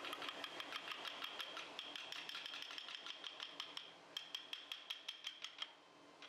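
Light, rapid mallet taps driving a hand carving gouge through wood, about four strokes a second, over a faint steady high tone. The tapping stops just before the end.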